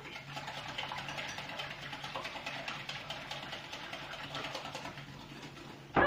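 Eggs being beaten by hand in a glass bowl: a fast, steady run of clicks and scrapes as the utensil strikes the bowl.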